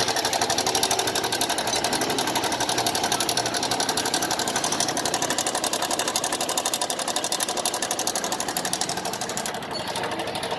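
TVS Star Sport's single-cylinder four-stroke engine running with a fast, even tik-tik ticking from inside the engine: the abnormal engine noise that is the bike's fault.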